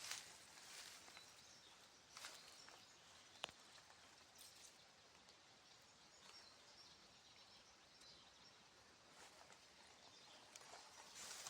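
Near silence: faint outdoor background hiss with a few soft clicks or rustles, the sharpest about three and a half seconds in, and faint bird calls.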